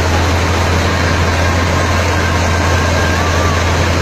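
Combine harvester engine running steadily under a heavy, constant low drone.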